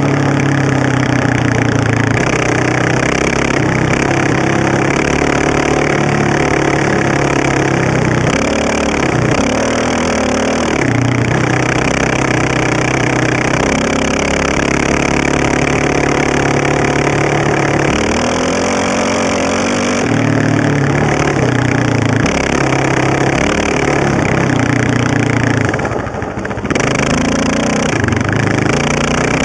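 Honda TRX700XX sport ATV's single-cylinder four-stroke engine, fitted with an FMF exhaust header, running hard on the trail, its pitch rising and falling as the rider shifts and rolls on and off the throttle, with a brief drop off the throttle near the end. A steady rush of wind and tyres on gravel runs underneath.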